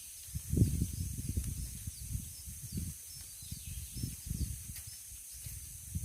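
Outdoor ambience: a steady high insect drone over irregular low rumbling and thuds on the microphone, with a few faint chirps.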